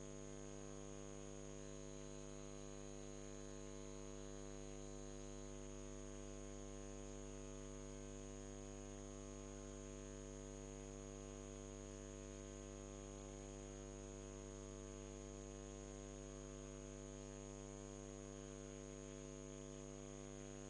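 Faint, steady electrical mains hum and buzz, several constant tones with a thin high whine above them, unchanging throughout.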